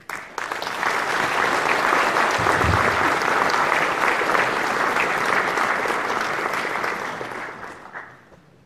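A large audience applauding, starting at once, holding steady for several seconds, then dying away about eight seconds in.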